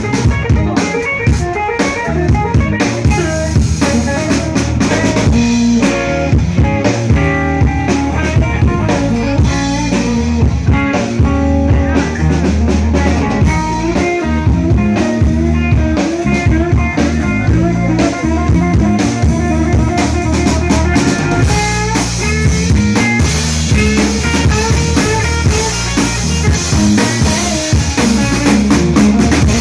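Live blues band playing: electric guitar lines over a steady drum kit groove, with kick drum and snare hits throughout.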